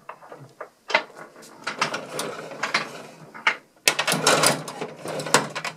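Rod-hockey clatter from a Gretzky table hockey game: control rods sliding and twisting, plastic players and the puck clicking and knocking, busiest from about four seconds in.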